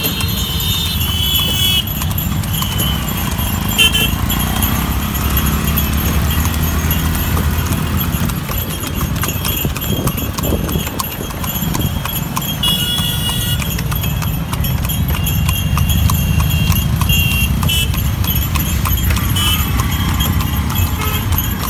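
A cart horse's hooves clip-clop steadily on a paved road as it pulls a horse cart, over a low rumble of street traffic.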